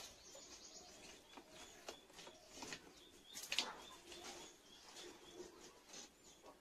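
Faint crackling and clicking from a wood fire in a clay stove as sticks are pushed in, with a sharper crack about three and a half seconds in. Soft bird calls sound in the background.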